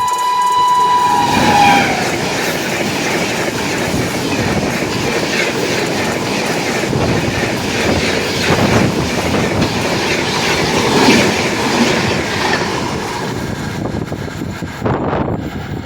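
A WAP-7 electric locomotive's horn sounds for about the first two seconds, its pitch dropping as it cuts off. Then comes the loud rush and rhythmic clatter of a train's wheels over rail joints at speed, with a sharp knock near the end.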